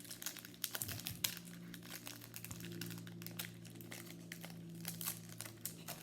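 Foil wrapper of a trading card pack crinkling and crackling as it is worked at and pulled open, a stubborn pack that is hard to get open.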